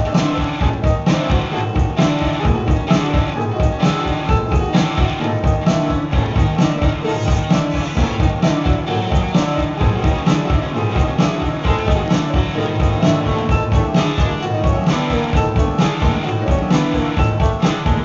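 Live instrumental band music: a drum kit keeps a steady beat under electric guitar and keyboards.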